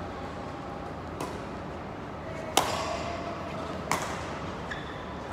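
Badminton rally: rackets striking a shuttlecock, sharp cracks about a second and a half apart in an echoing hall, the loudest about two and a half seconds in and a fainter one earlier.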